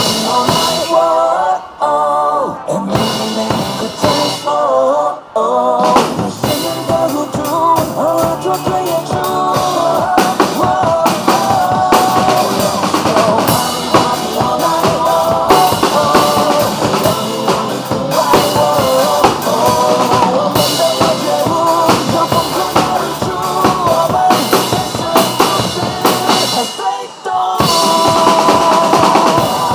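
Drum kit played live, with kick, snare and cymbals, along to a pop-rock backing track with vocals. The drums thin out briefly about two and five seconds in and again near the end.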